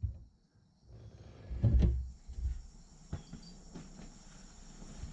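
A few knocks and clunks of hands working around the roller's engine and battery, with the engine not running. The loudest is a dull thump about two seconds in, followed by a smaller knock and a couple of sharp clicks.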